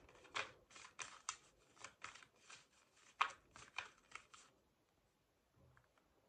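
A tarot deck shuffled by hand: a run of quick, uneven card slaps and flicks that stops about four and a half seconds in.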